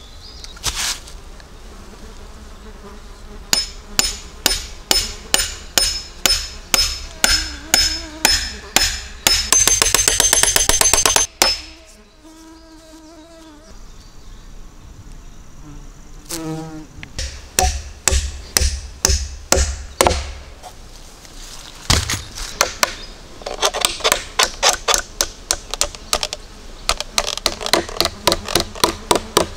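Repeated striking blows on wood, at first about two a second and then speeding into a fast run with a high metallic ring. After that a bumblebee buzzes close by for a few seconds, a few dull thuds follow, and another run of quick blows is struck with an axe.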